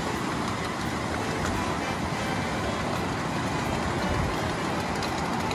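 Steady rumble of a miniature live steam train running along its track, with a few faint clicks.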